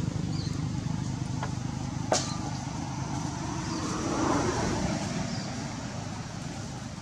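A motor vehicle engine running nearby, a low pulsing rumble that slowly fades away. A single sharp click comes about two seconds in, with a few faint high chirps.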